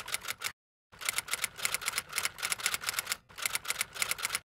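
Typewriter typing sound effect: a quick run of key clicks, several a second, matching on-screen text being typed out. It pauses briefly about half a second in and stops just before the end.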